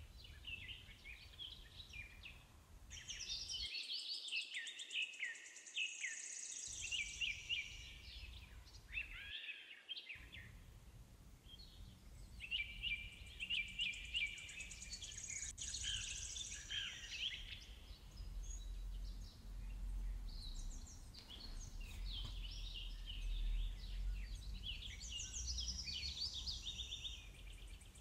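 Birds singing: many short chirps and fast trills, repeated in phrases, with a low rumble underneath in the second half.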